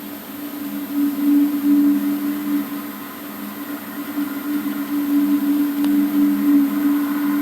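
A low, droning hum made of two steady held tones that swells louder and eases off again: one of the unexplained 'strange sounds' heard in the sky, whose source is not known.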